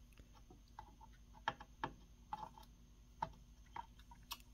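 Soldering iron heating solder wick on a circuit board's solder pads to desolder a capacitor: faint, irregular small clicks and crackles, the strongest about a second and a half, two and three seconds in.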